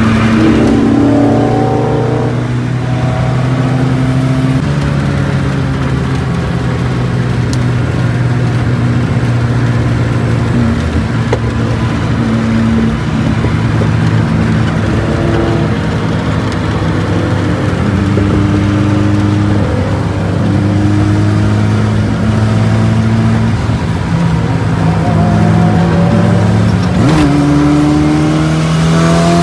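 Car engine running hard at highway speed, its pitch rising and then stepping down at gear changes several times, over steady road and wind noise.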